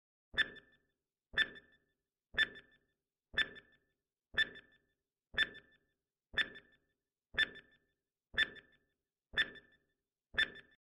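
Quiz countdown timer sound effect: a short, sharp tick once a second, eleven in all, each with a brief ringing tone.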